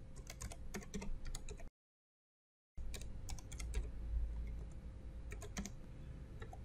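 Computer keyboard typing: irregular key clicks over a faint steady hum, with a dead-silent break of about a second near two seconds in.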